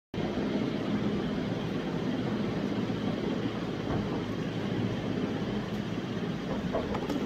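Steady low rumble and hum of background machine noise, like a running motor, at an even level.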